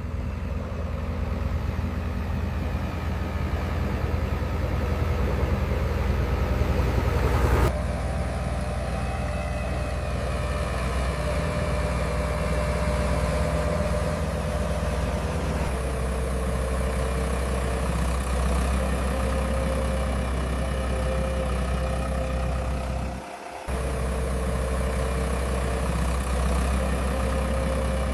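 Diesel engine of heavy construction machinery running steadily with a deep hum. The sound changes abruptly about a third of the way in and again about halfway, and there is a brief drop near the end.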